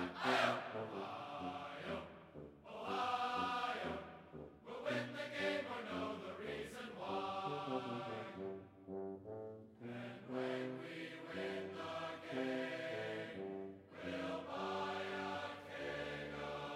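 Background music: a choir of voices singing held notes in phrases, with short breaks between the phrases.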